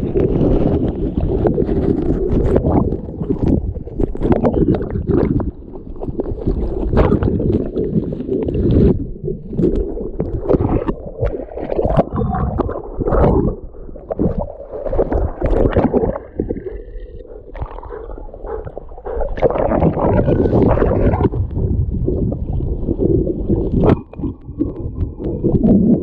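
River water sloshing and splashing, uneven and heavy in the low end, rising and falling with brief lulls, with sharp little clicks and knocks scattered through.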